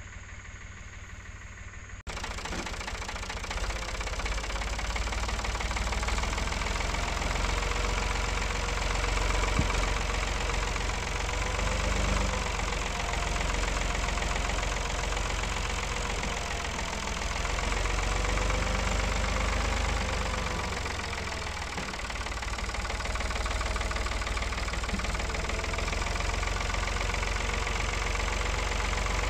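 Tractor engine running, its pitch rising and falling a little as the engine speed changes. It comes in suddenly about two seconds in, after a quieter steady hum.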